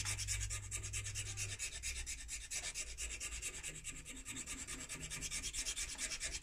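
Hand file rasping over a vulcanite pipe stem in quick, even strokes.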